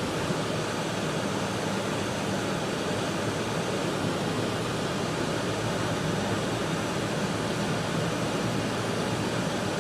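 Steady cabin noise inside a moving four-wheel-drive vehicle: a low engine and road hum under an even hiss of wind and heater fan.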